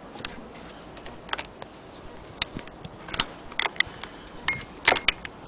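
Scattered clicks and light knocks with no steady rhythm as the metal and wooden parts of an antique Bradbury hand-crank sewing machine are handled. The sharpest cluster comes near the end.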